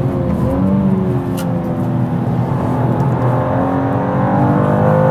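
2023 BMW M2's twin-turbo inline-six engine heard from inside the cabin, running hard on track. Its note dips early on as the car slows and drops from fourth to third gear, with a sharp click about a second and a half in, then climbs steadily as it accelerates out of the corner.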